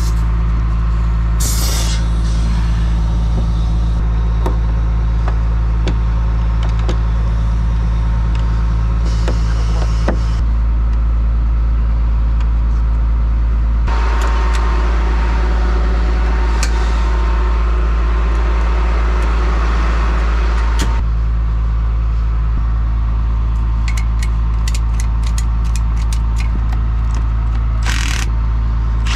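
Heavy diesel truck engine idling steadily, with a hiss of noise for about seven seconds midway and a few sharp clicks near the end.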